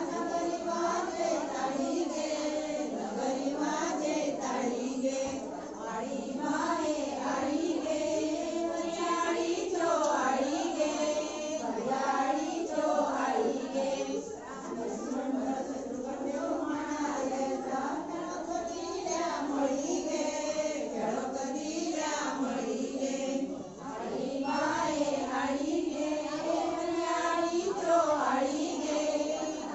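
A group of women singing a Dhalo folk song together in many voices, the melody moving steadily without pause.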